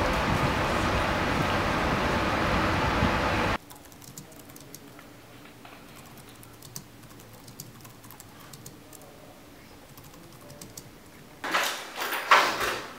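A steady wash of street noise that cuts off abruptly, then soft clicking of fingers typing on a computer keyboard. Near the end, a run of loud, irregular clattering knocks.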